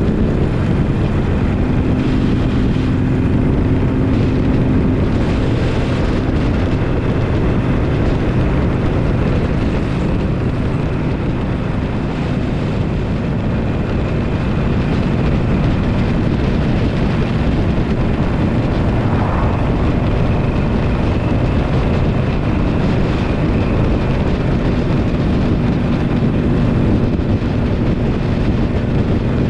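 Harley-Davidson Iron 883's air-cooled V-twin engine running steadily under way, with wind noise on the microphone.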